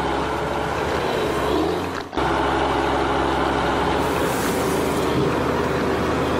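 Tractor engine running steadily, with a brief break about two seconds in.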